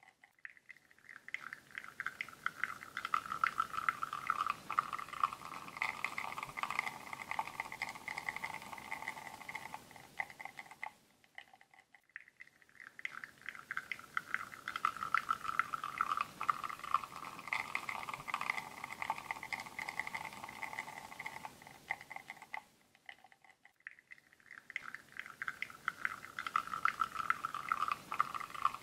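Espresso pouring from a bottomless portafilter on a La Marzocco Linea Mini into a ceramic cup: a thin, crackling trickle. It fades out twice, for a second or so each time, and then builds up again.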